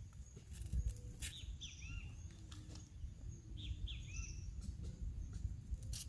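Birds chirping: short hooked chirps in small clusters, about a second in and again around four seconds in, over a steady low rumble, with a few sharp clicks.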